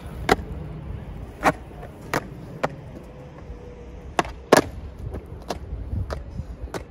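Old-school Dominion skateboard rolling on rough concrete, its wheels giving a steady low rumble, with several sharp clacks from the board. The loudest clacks come about four and a half seconds in.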